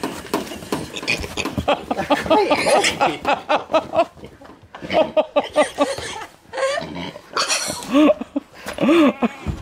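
Oxford Sandy and Black piglets grunting and squealing in many short, irregular calls as they are handled and steered by hand.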